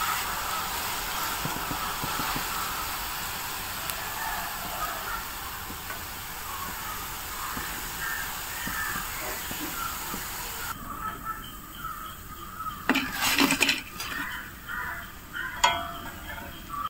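Battered cauliflower pieces sizzling steadily as they deep-fry in hot oil, while a perforated steel skimmer lifts them out. About eleven seconds in the sizzle cuts off. A few sharp clinks and knocks follow, a cluster about two seconds later and one more near the end.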